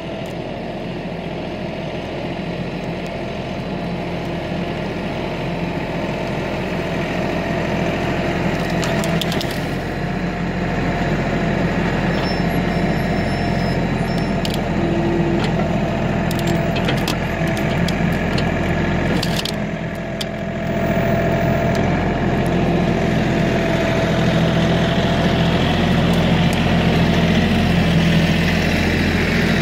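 Kioti NX6010 tractor's diesel engine running steadily and working under load, with a brief dip about two-thirds through before it comes back louder. Scattered sharp cracks and clicks break in during the middle stretch.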